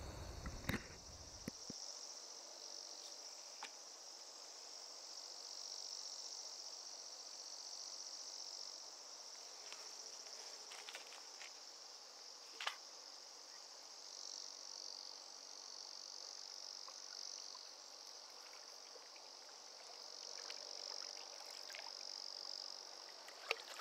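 Steady high-pitched chorus of summer insects, swelling and fading slowly, with a few faint clicks and one sharper tick about halfway through.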